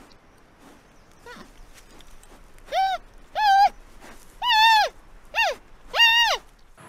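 Giant panda bleating: after a few faint calls, five loud calls come in quick succession from a little under three seconds in. Each one rises slightly and then drops in pitch at its end.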